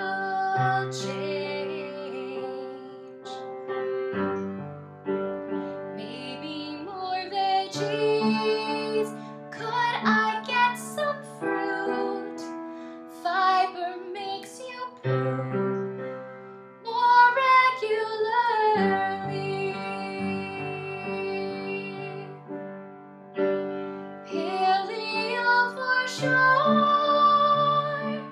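A woman singing a slow, sustained melody with vibrato over piano accompaniment.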